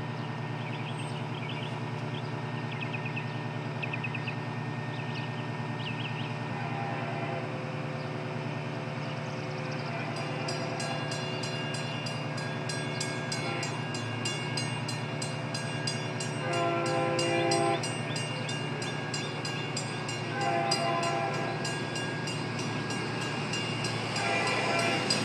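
Approaching train's horn sounding several times over a steady low drone, faint at first and growing louder; the longest and loudest blast comes about two-thirds of the way through, with shorter blasts after it.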